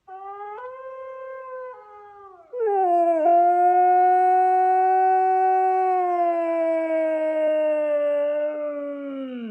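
A dog howling: a shorter, softer howl, then from about two and a half seconds in a loud, long drawn-out howl that slowly falls in pitch at the end.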